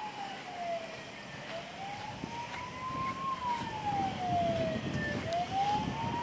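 Emergency-vehicle siren wailing, a single tone sweeping slowly up and down about once every four seconds, with a low rumble over the last couple of seconds.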